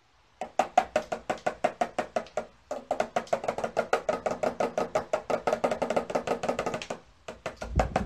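Small metal-rimmed toy drum tapped in fast, even rolls of about nine strokes a second, each stroke with a short ringing tone. The rolls break off briefly about two and a half seconds in and again about a second before the end.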